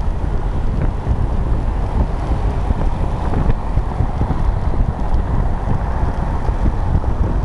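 Steady low rumble of wind buffeting the microphone, mixed with the road noise of a car driving over cobblestones.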